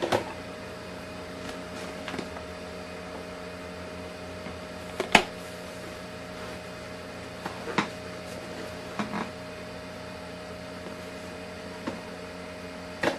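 Steady electrical hum and hiss with a few fixed tones. Sharp clicks and knocks come at irregular moments over it, about seven in all, the loudest about five seconds in.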